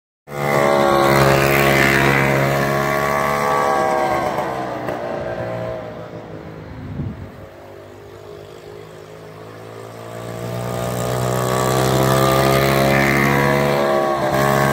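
Two-stroke golf cart engine running as the cart drives. Its note is loud at first, drops in pitch and fades about halfway through, then rises and grows loud again near the end as the cart comes back close.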